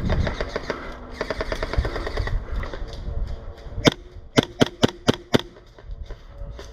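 Airsoft guns firing: a rapid string of quieter shots in the first couple of seconds, then six sharp, louder single shots between about four and five and a half seconds in.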